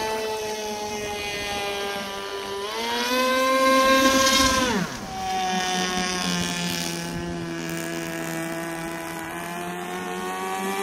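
Nitro model-airplane glow engine driving the propeller of an RC airboat, running with a steady high buzz. About three seconds in it revs up, then falls back sharply around five seconds in and settles to a lower steady pitch that slowly climbs again near the end.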